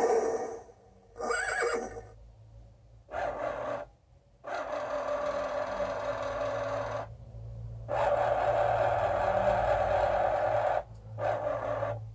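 Excalibur Phantom Force chess computer's motor-driven magnet carriage under the board whirring in several runs, one short, then two longer runs of two to three seconds each and a short one near the end, over a steady low hum, as it drags the captured white knight off the board and slides the black pawn into its square.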